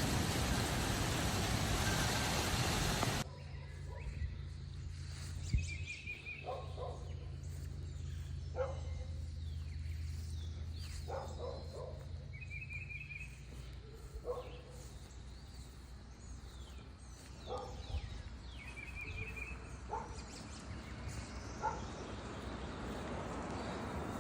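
A loud, steady rush of noise cuts off suddenly about three seconds in. After it, birds call outdoors over a low steady hum, with short calls every second or two and a quick trill heard three times.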